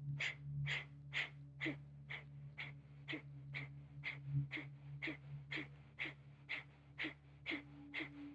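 A woman's forceful nasal exhales in Kapalabhati (Breath of Fire) breathing: short, sharp puffs of breath, about two a second in an even rhythm, each pushed out by drawing the belly in while the inhale follows passively. A steady low hum runs underneath.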